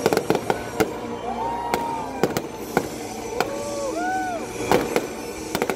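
Fireworks display: aerial shells bursting in a rapid, uneven run of sharp bangs, some in quick clusters, with brief whistling tones rising and falling between them.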